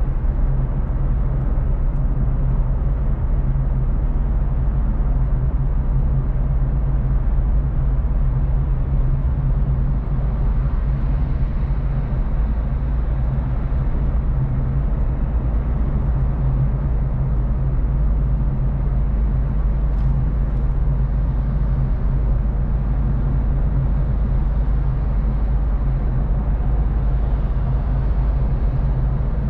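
A car being driven at a steady pace: a constant low engine hum with tyre and road rumble, holding an even level throughout.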